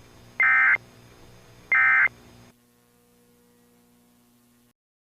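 Emergency Alert System digital data tones (SAME/AFSK): two short, loud warbling bursts about 1.3 s apart, the end of the three-burst end-of-message code that closes the alert. A faint hum follows and cuts off into silence near the end.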